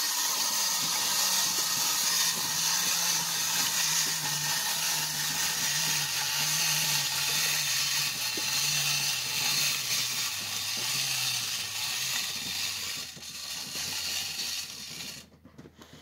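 Clockwork spring motor of a tin wind-up robot toy whirring as the toy rolls along on its wheels, its pitch slowly falling as the spring unwinds, then cutting off suddenly near the end as the spring runs down.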